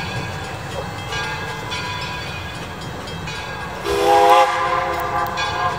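Steam locomotive whistle blowing one chime-like blast about four seconds in, rising in pitch as it opens and lasting under two seconds, over the steady rumble of the train.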